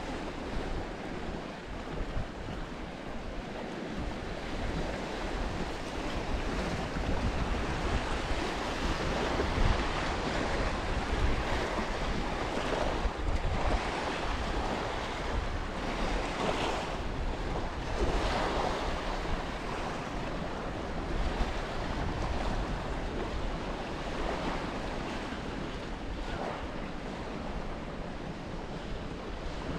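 Sea waves washing onto a shingle beach, the hiss swelling and easing, with wind buffeting the microphone in a low rumble.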